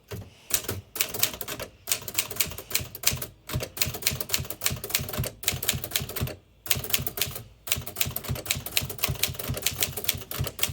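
Typing on a Smith-Corona manual typewriter: a quick, uneven run of key strokes with the typebars clacking against the platen, broken by brief pauses between words.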